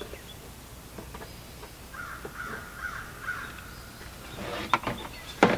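A crow cawing several times in quick succession about two seconds in, with a couple of sharp knocks near the end.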